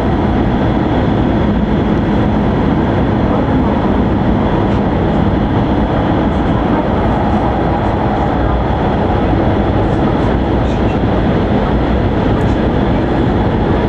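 Cabin noise of an E5 series Shinkansen under way: a steady rumble and hiss from the running gear and the air around the car body, even throughout.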